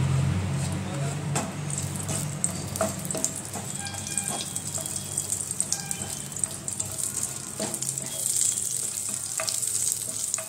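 Whole cumin seeds, a bay leaf and green chillies sizzling in a little hot ghee in a nonstick frying pan, with scattered small pops as the cumin fries. A spatula scrapes and taps in the pan now and then.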